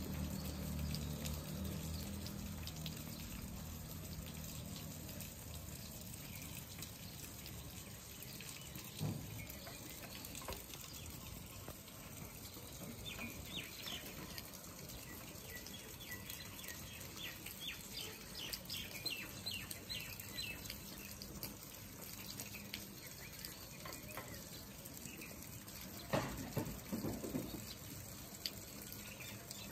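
Faint outdoor background noise with small birds chirping in a quick run of calls for several seconds midway, and a short louder sound near the end.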